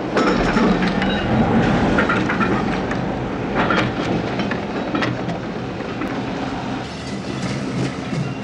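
Railway goods wagon rolling along the track, its wheels and running gear clattering with repeated sharp metallic clanks over a steady rumble.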